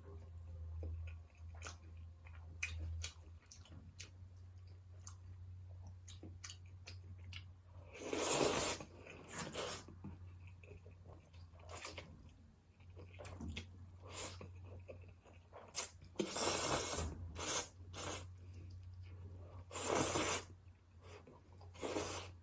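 A person eating close to the microphone: soft chewing and small mouth clicks, then about five louder noisy bursts of crunching and slurping-type eating sounds, the biggest about eight seconds in. A steady low hum runs underneath.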